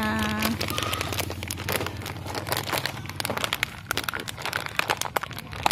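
A crinkly plastic snack packet being handled and opened, with a dense run of irregular crackling and rustling.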